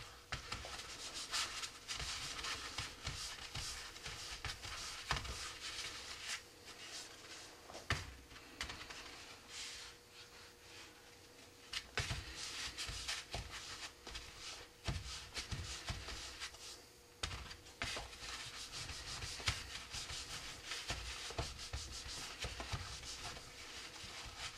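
A damp towel wiped round and round the glassine-wrapped outsides of rocket motor propellant grains, a continuous scuffing rub, to wet them before gluing. A few light knocks come as grains are stood back on the table.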